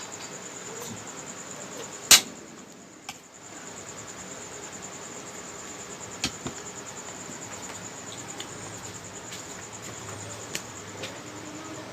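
Crickets trilling steadily in the background, with a few sharp clicks on top, the loudest about two seconds in.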